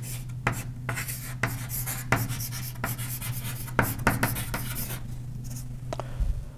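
Writing on a lecture-hall board: a run of short, irregular strokes, with a steady low hum underneath.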